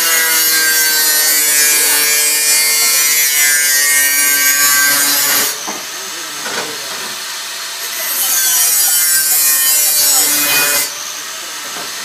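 Electric power tool with an abrasive disc cutting stainless steel tube, a loud hissing whine whose pitch sags and recovers as the disc is loaded. It runs for about five seconds, stops briefly, then cuts again for about three seconds.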